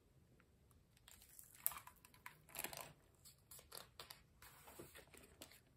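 Faint paper rustles and soft handling knocks as a hardcover picture book's cover is opened and its pages are turned.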